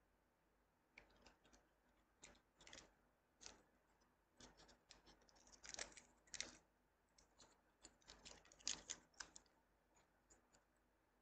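Masking tape being peeled, torn and pressed onto a small brass finger cymbal (zill): soft, irregular scratchy rustles and small clicks, loudest about halfway through and again a little later.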